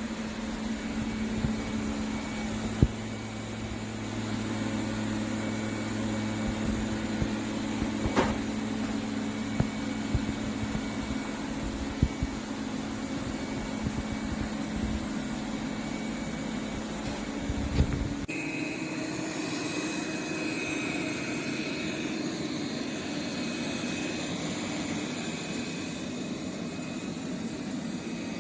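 Roborock Q8 Max robot vacuum running, a steady machine hum with scattered knocks and clicks. About 18 seconds in, the sound changes abruptly to a thinner, higher steady whine.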